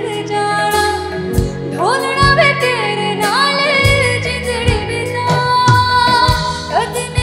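A woman singing a Hindi film song live into a handheld microphone, with sliding, ornamented vocal lines, backed by a band with drums.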